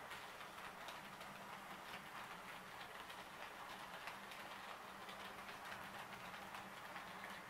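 HO-scale model trains running on the layout's track: a faint, steady whir of small motors and wheels on the rails, with light rapid ticking over the rail joints.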